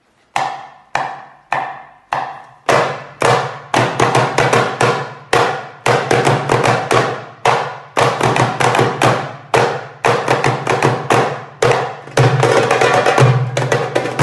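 Four hand drums played together by hand. A single drum opens with four slow, evenly spaced strokes, then about three seconds in the others join in a fast, dense ensemble rhythm of sharp slaps and deeper tones, growing louder near the end.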